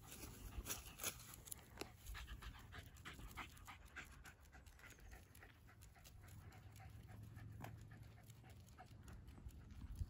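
Jack Russell terrier panting faintly, with many quick light clicks throughout.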